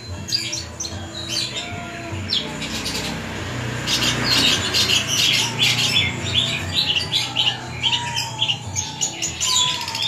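Caged long-tailed shrike (cendet) singing a varied song of sharp, rapid chirps and twitters, packed densely and louder from about halfway through, with a few short whistled glides near the end.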